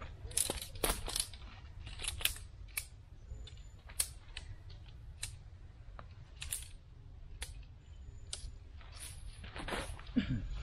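Shock-corded aluminium tent pole sections clicking and knocking together as the pole is unfolded and joined, an irregular string of sharp clicks.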